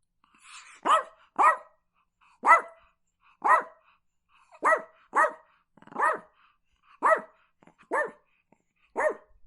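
Chihuahua barking: about ten short barks, roughly one a second, a few of them coming in quick pairs.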